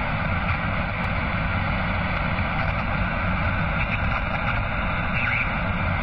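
Steady electronic static hiss with a low rumble beneath it, dull with no high end, like the noise of a surveillance or radio feed.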